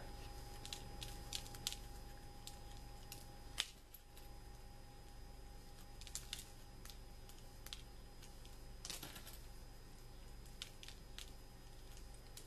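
Needle-nose pliers squeezing the heads off wooden matches: scattered small clicks and crunches, with a louder snap about three and a half seconds in and a quick cluster of them near nine seconds.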